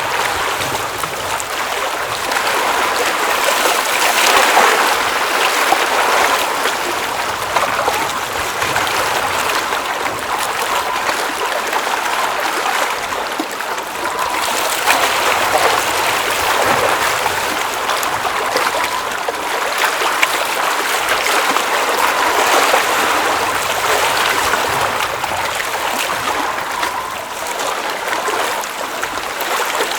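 Water at a glacial mountain lake running and trickling in a continuous babble, swelling a little in loudness every few seconds.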